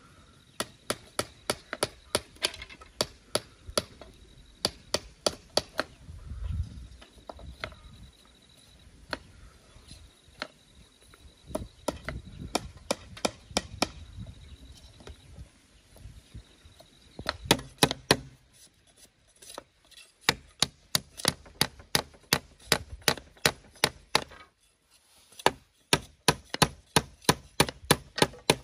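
Tool chopping at wood or bamboo: sharp, evenly spaced blows about two to three a second, in runs broken by short pauses.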